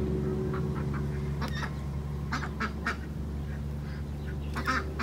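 Domestic ducks quacking softly now and then, a scatter of short single calls, over a steady low hum.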